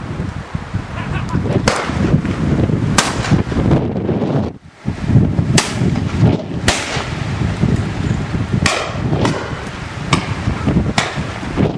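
Shotgun shots at driven pheasants from several guns: about eight sharp reports, irregularly spaced, over a steady rumble of wind on the microphone.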